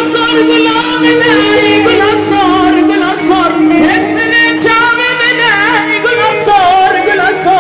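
Kurdish folk music: melismatic singing in the dengbêj long-song (uzun hava) style, the pitch wavering in quick ornaments over a steady held drone note.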